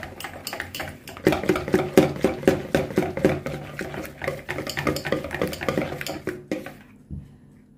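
Wire whisk beating thick, creamy cake batter by hand in a plastic bowl: rapid, even swishing strokes with the wires clicking against the bowl. The strokes stop about six and a half seconds in.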